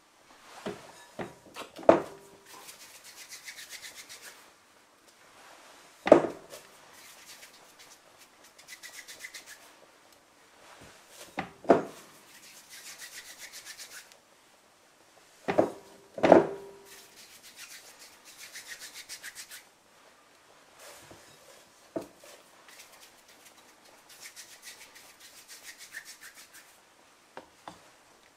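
Kitchen prep work: bouts of rapid scraping strokes a couple of seconds long, broken by sharp knocks, the loudest a few seconds apart.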